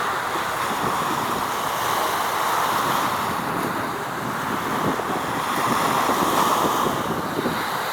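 Steady rushing noise of wind and water, swelling gently with no distinct events.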